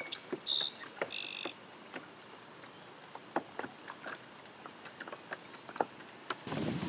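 Birds calling: a few short, high chirps in the first second and a half. Then only faint scattered ticks, and near the end a rush of wind on the microphone.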